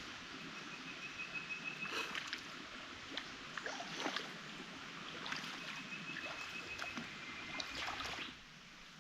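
Steady rain hiss with scattered sharper drop-like ticks, and a high, even trilling call twice, each about two seconds long. The rain sound falls away shortly before the end.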